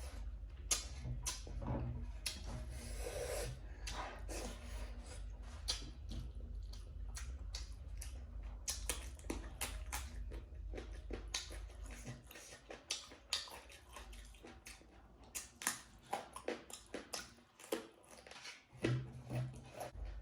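A person chewing pork and rice, with many short wet mouth clicks and smacks at irregular intervals, more spread out after about 12 s.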